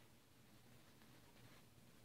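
Near silence: faint room tone with a steady recording hiss.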